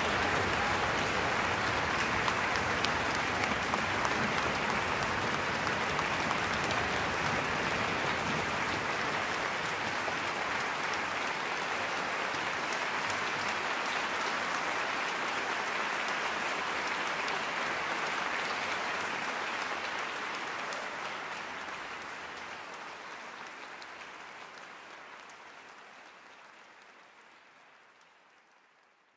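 Audience applauding steadily, fading away over the last several seconds.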